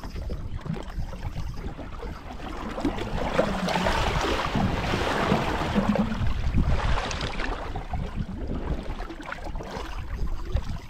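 Wind buffeting the microphone over choppy water lapping at a bass boat's hull, a steady low rumble with a louder rush of noise swelling in the middle.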